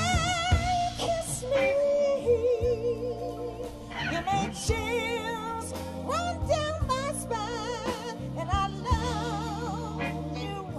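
Live blues band with electric guitar, keyboard, bass and drums playing, under a woman's wordless sung lines held with a wide vibrato.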